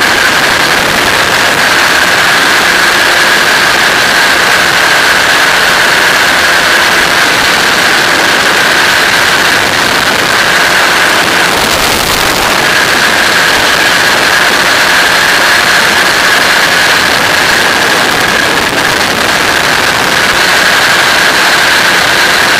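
Flexwing microlight trike in cruise flight: its engine and pusher propeller running steadily under loud wind rush, with a steady high whine that briefly fades about halfway through.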